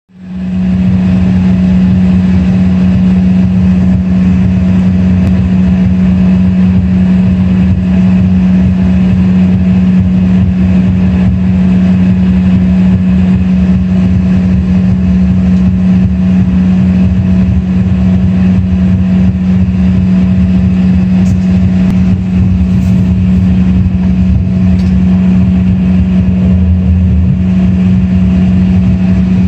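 Steady drone inside the cabin of an Embraer ERJ-135 regional jet taxiing with its engines at idle: a strong constant hum over a low rumble and airy hiss, fading in at the very start.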